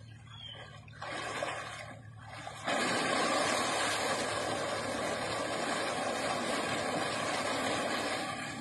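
Water spraying from a broken underground water pipe: a short spurt about a second in, then a steady hard gush from about two and a half seconds in.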